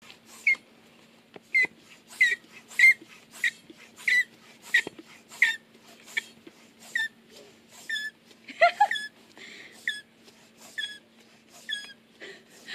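Floor pump being worked in quick, regular strokes, about one and a half a second, each stroke giving a short squeak that falls in pitch, as a freshly fitted downhill mountain bike tyre is inflated.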